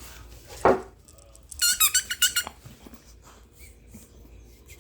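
A squeaky dog toy being chewed, squeezed in a quick run of about six short high squeaks around two seconds in. A single short, loud sound comes just before them, about half a second in.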